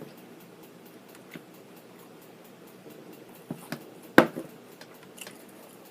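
Quiet eating and food-handling sounds: faint soft clicks and mouth noises, with one sharp tap a little after four seconds in.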